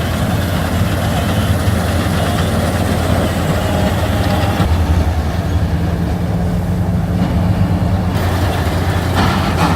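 Combine harvester engine running steadily, loud and low-pitched.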